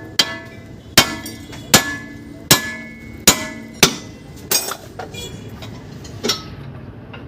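Hammer striking metal, about eight ringing blows roughly every three-quarters of a second, with a longer pause before the last one.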